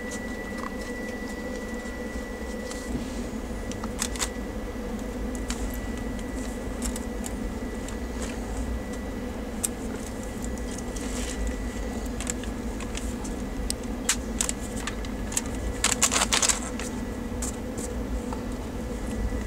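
Steady running rumble of a passenger train heard from inside the coach, with a faint steady high whine. Scattered rattles and clicks run through it, and a short cluster of clicks comes near the end.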